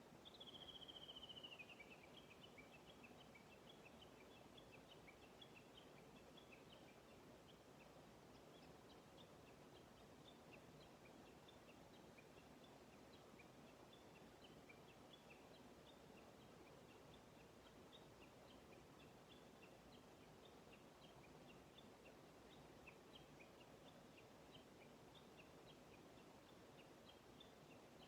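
Small birds calling faintly: a descending trill lasting about a second right at the start, then scattered short high chirps, over a low steady outdoor hiss.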